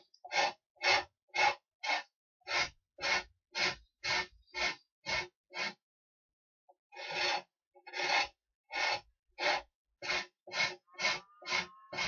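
Rhythmic rasping strokes of a hand tool working a piece, about two a second, pausing for about a second midway before resuming.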